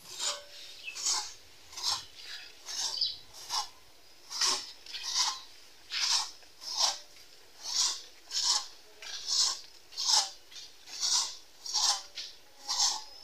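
Hand saw cutting through mango wood in steady back-and-forth strokes, a raspy stroke a little more than once a second.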